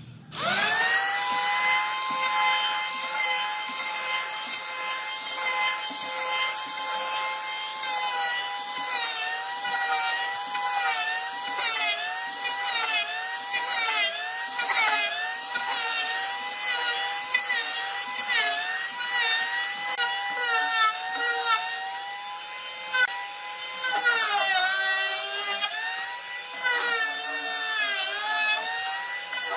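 Handheld electric planer starting up and running with a steady whine, then planing a rough hardwood slab: the motor's pitch dips about once a second as the cutter head bites into the wood on each pass, dropping lower for a while near the end.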